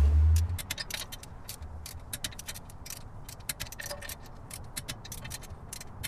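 Ratchet of a torque wrench clicking in quick, irregular runs as it tightens the nuts of a wheel spacer on a truck hub. A low rumble sounds in the first half-second.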